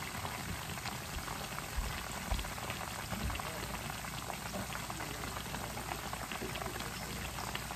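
Chicken pieces frying in hot vegetable shortening in an electric skillet packed full of chicken: a steady crackling sizzle. A few soft low thumps come in the first few seconds.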